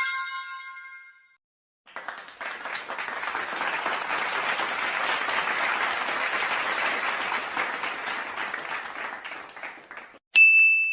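A crowd applauding for about eight seconds, swelling in and fading out. Before it a short ringing chime dies away, and near the end a sharp high ding begins.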